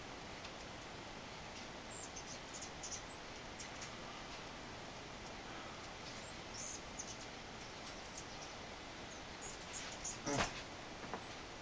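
A flock of rufous hummingbirds at a feeder: short, high chips and twitters scattered over a steady hiss, with a sharp click about ten seconds in.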